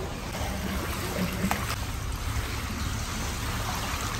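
Jacuzzi (hot tub) with its jets and bubbles running: a steady churning of water.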